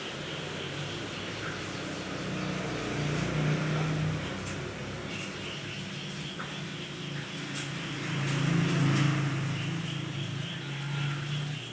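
A steady low mechanical hum, swelling louder twice, about three seconds in and again around eight to nine seconds.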